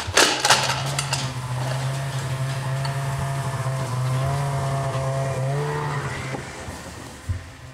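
Ski-Doo Renegade Backcountry 850 E-TEC two-stroke snowmobile engine running at a steady pitch as the sled drives past towing a loaded sleigh, rising slightly in pitch near the end and then fading away. A brief metallic clatter is heard at the very start.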